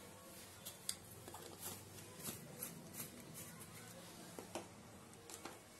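Faint, scattered light clicks and taps of a small spoon and hands at work as ground coriander is spooned onto raw mutton in a steel bowl.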